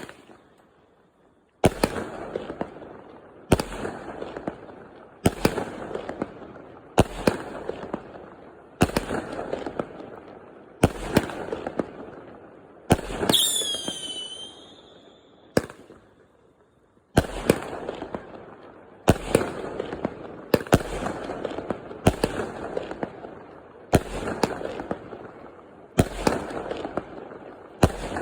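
Fireworks going off in a steady barrage: a sharp bang about every two seconds, each followed by a crackling tail that fades. About halfway through there is a whistling firework with a falling pitch.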